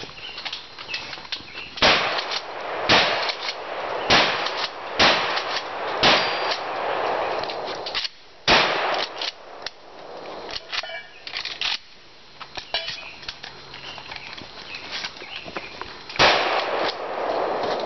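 Shotgun shots, each followed by a metallic ringing clang: five shots about a second apart, another a couple of seconds later, then a single shot near the end after a long pause.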